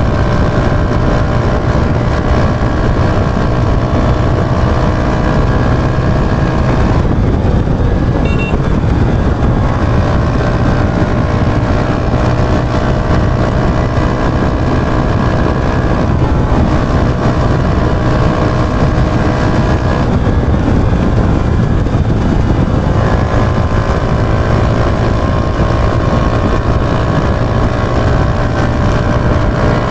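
Yamaha YB125Z DX motorcycle's 125 cc single-cylinder engine running steadily under load while riding. Its note breaks and changes pitch twice, about seven and twenty-one seconds in.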